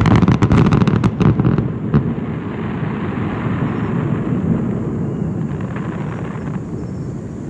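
Fireworks bursting: a rapid run of sharp cracks and bangs for about the first two seconds, then a low rumble that slowly dies away.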